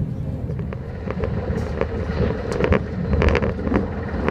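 Passenger train running at speed, heard from inside the carriage: a steady low rumble with scattered clicks and knocks.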